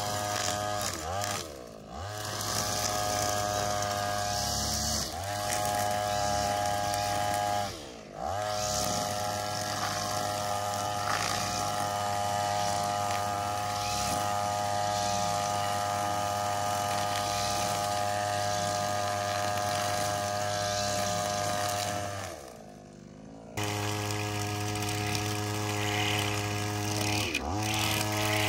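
Small two-stroke power-tool engine running steadily at high revs, its pitch dipping sharply and recovering a few times as it bogs under load. Near the end it drops away for about a second, then comes back at full revs.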